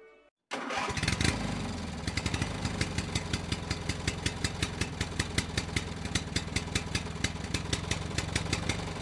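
Tractor diesel engine that comes in suddenly about half a second in, then idles steadily: a low, even chugging with a fast, regular knocking tick.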